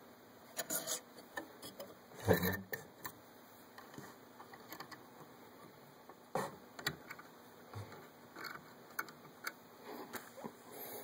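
Irregular clicks and knocks of a steel wire and metal hooks being handled on a homemade wire-twisting jig as it is set up to put a barrel twist in lure wire. The loudest knocks come about two seconds in and again about six seconds in.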